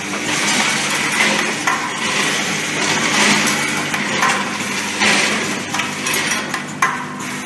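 Automatic hook attachment welding machine running: a continuous, dense metallic clinking and rattling of wire hooks moving through its feeder and track, over a steady machine hum.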